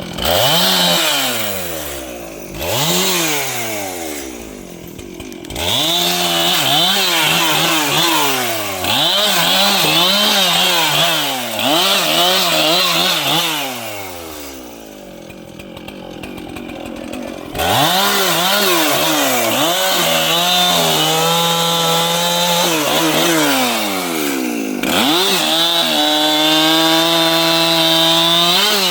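Large two-stroke chainsaw revving up and down over and over as it works into wood. It drops back to idle for a few seconds around the middle, then holds steady high revs in the later part.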